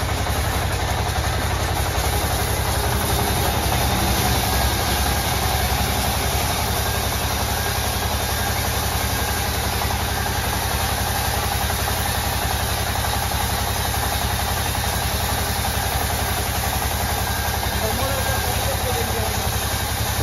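Sawmill band saw running steadily, giving a continuous machine hum and blade noise while timber is fed through it.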